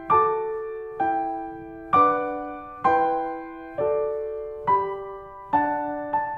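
Background music: a slow keyboard melody, one note struck about every second, each dying away before the next.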